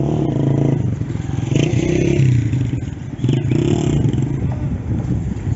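A motor vehicle engine running nearby, its pitch and level rising and falling in uneven surges.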